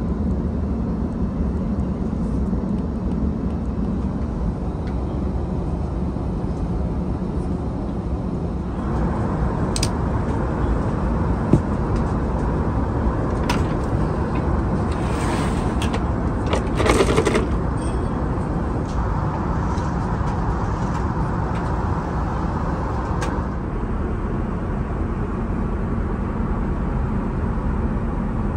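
Steady cabin noise of an Airbus A380 airliner. In the middle it is broken by a few clicks and a sliding scrape as a large wooden table is pulled out of its stowage beside the seat, the loudest scrape about 17 seconds in.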